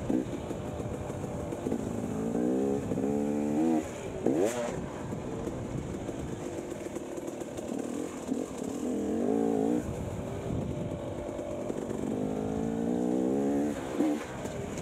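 Dirt bike engine, heard from on the bike, revving up in pitch under throttle and easing off between pulls, with rises about two, nine and twelve seconds in. There is a brief thump about four and a half seconds in.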